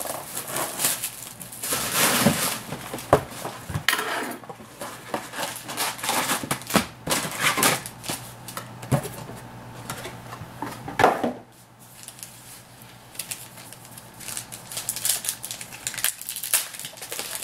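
Handling noise from opening a sealed box of trading cards: the plastic wrap crinkling as it is pulled off, the cardboard box flap opened and the card packs scraping as they are slid out, then a pack being opened. Irregular crackles, clicks and scrapes, with one sharper crack about eleven seconds in.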